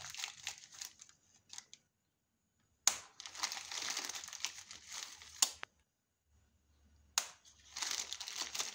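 Clear plastic bag crinkling as hands open it and pick out small ceramic TIG welding nozzles, in three spells of rustling separated by short pauses. The later spells each begin with a sharp click, and another click comes about five and a half seconds in.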